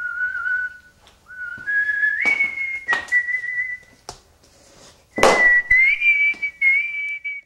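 A man whistling a slow tune in long held notes that step upward, with a few short knocks and one loud thump about five seconds in.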